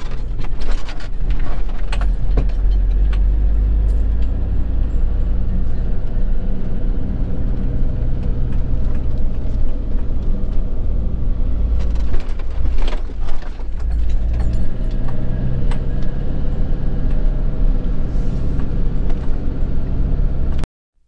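Camper van driving along a road, heard from inside the cab: steady engine drone with road noise. The sound cuts off suddenly near the end.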